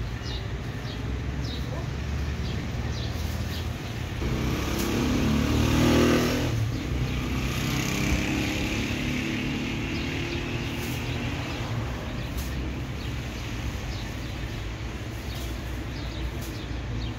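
A motor vehicle's engine running over a steady low rumble, growing louder from about four seconds in and peaking around six seconds before easing off.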